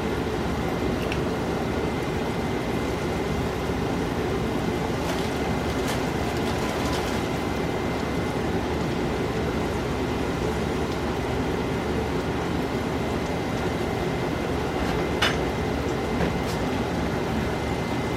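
Floured chicken pieces frying in hot oil: a steady sizzle, with a couple of sharp pops near the end.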